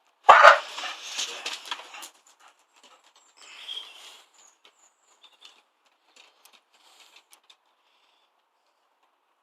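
A red-nose pit bull scuffling and thrashing about: a loud burst of rustling and scrabbling, starting with a knock, begins about a third of a second in and lasts under two seconds. A softer rustle follows around four seconds in, then scattered light clicks.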